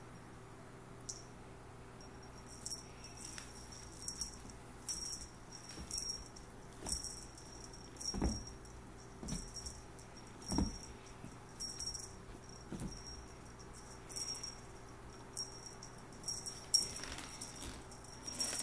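A small bell on a cat toy jingling in short bursts, about one a second, as the toy is batted and tossed around. A couple of soft thumps from kittens pouncing on the carpet come in the middle.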